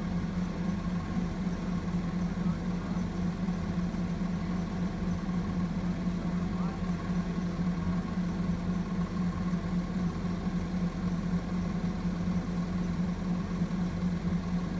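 Automated side-loader garbage truck's engine running steadily while the truck stands still, a constant low hum.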